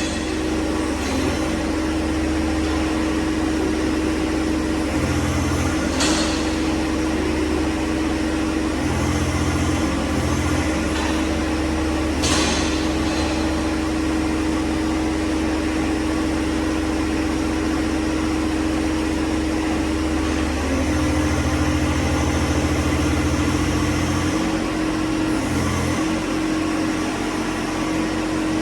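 2022 John Deere 1025R compact tractor's three-cylinder diesel engine running at a steady speed. There is a brief sharp noise about six seconds in and another about twelve seconds in.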